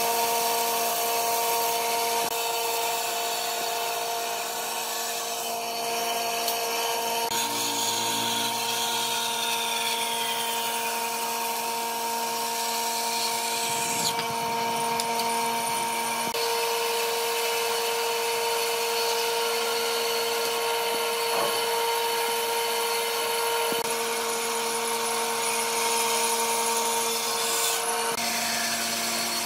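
Band saw running with its blade cutting through a thick wooden block: a steady machine hum over the hiss of the cut, changing abruptly a few times.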